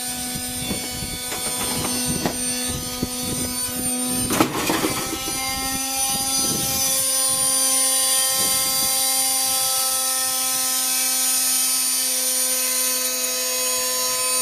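Washing machine in a fast spin: a steady motor and drum whine with repeated knocks in the first few seconds as the machine shakes. One loud bang comes about four and a half seconds in, after which the whine runs on steadily and a little louder.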